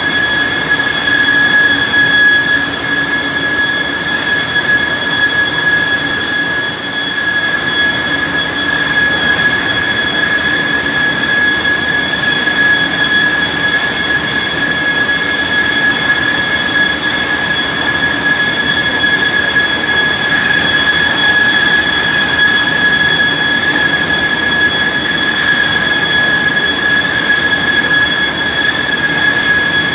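Newman PM-1600 high-speed planer matcher running: a loud, steady, high-pitched machine whine over a lower hum and noise.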